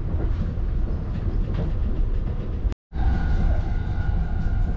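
Cabin sound of the Saphir Odoriko, a JR East E261-series electric express train, running: a steady low rumble of wheels on the rails. It cuts off abruptly about three seconds in and resumes with a steady whine over the rumble.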